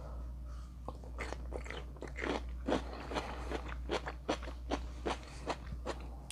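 Close-up mouth sounds of someone chewing a bite of steak kebab with pepper and onion: a run of sharp wet clicks and crunches, about two or three a second, starting about a second in. A steady low hum lies underneath.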